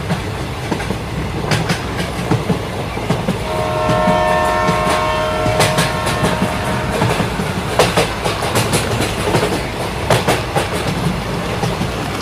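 Toy trains running on plastic track: a steady low running noise with scattered clicks of wheels over the rail joints. A few seconds in, a flat electronic horn tone sounds for about three seconds.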